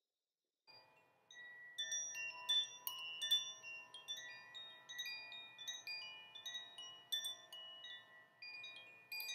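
Chimes ringing: many clear tones at different pitches struck at random, each ringing on and overlapping, starting about a second in.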